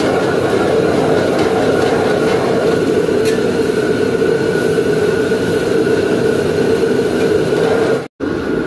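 Commercial gas wok burner roaring steadily under a wok while the food in it sizzles as it is stir-fried. The sound cuts out for a moment near the end.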